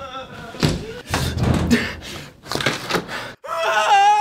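A few loud thuds and crashes, then after a brief cut-out a sustained pitched tone begins near the end.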